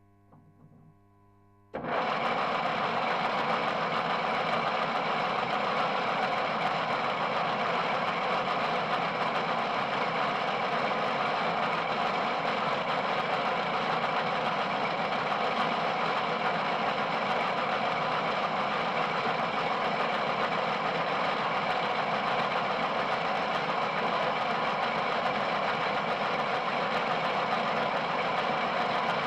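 Metal lathe switched on about two seconds in, its motor and gearbox then running steadily with a loud, even whine and hum.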